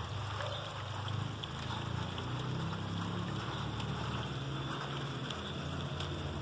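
Garden-scale model train running along its track: a steady low mechanical hum whose pitch wavers slightly, over a constant noisy rush.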